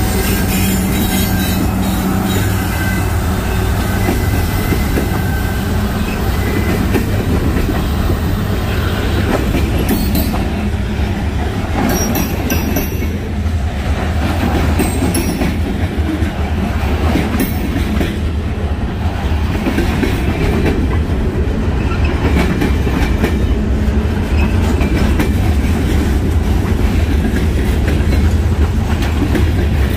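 Freight train rolling past, a steady loud rumble with the clickety-clack of freight car wheels over rail joints and some wheel squeal.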